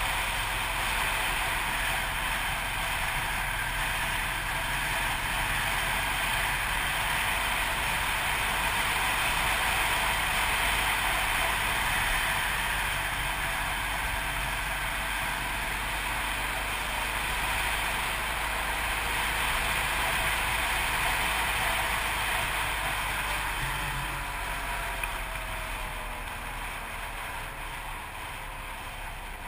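Yamaha TT600RE single-cylinder motorcycle engine running under way, mixed with steady wind rush on an onboard camera microphone. It gets somewhat quieter near the end.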